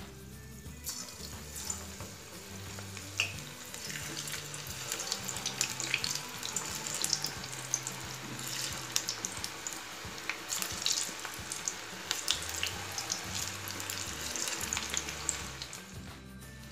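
Batter-coated cauliflower pakoda pieces deep-frying in hot oil in a kadai: a steady sizzle full of small crackling pops as the freshly added pieces bubble hard, dipping briefly near the end.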